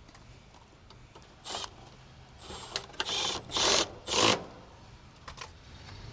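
Hand tool work on an air-conditioner condenser's wiring: a run of short, rasping mechanical bursts, the loudest two about four seconds in.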